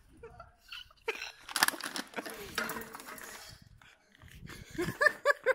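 A couple of seconds of rough rustling and scraping noise, then a short run of laughter near the end.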